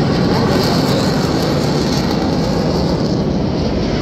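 Continuous jet roar of Republic of Korea Air Force T-50B jets flying overhead, each powered by a single General Electric F404 turbofan. The hiss at the top of the sound thins out a little near the end.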